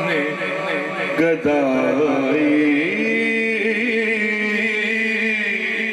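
A man chanting a naat into a microphone, in long drawn-out, wavering notes that settle into one long held note about three seconds in.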